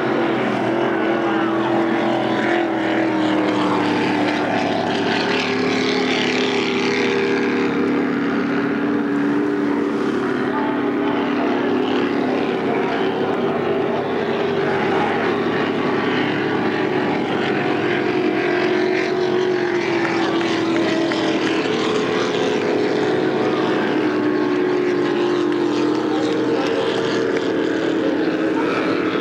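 Racing powerboat engines running flat out, a steady drone of several overlapping engine tones whose pitch slowly wavers as the boats race past.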